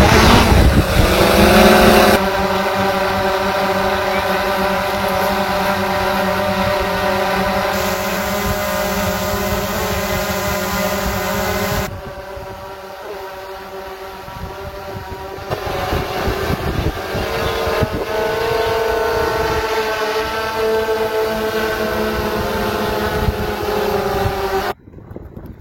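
DJI Mavic 2 Pro quadcopter's motors and propellers humming in flight, a steady multi-tone whine that shifts in pitch now and then. It opens with about two seconds of loud rushing wind noise, and its loudness jumps abruptly a few times, dropping for a few seconds around the middle.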